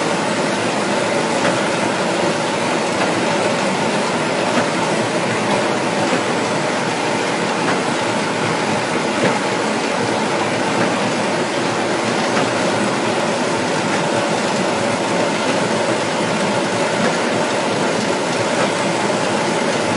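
Rotary veneer peeling lathe running, its chain drives and rollers making a steady, unbroken mechanical din.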